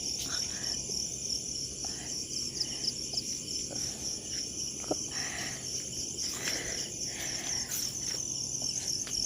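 Night insects trilling in a steady, high-pitched chorus, with a few faint clicks.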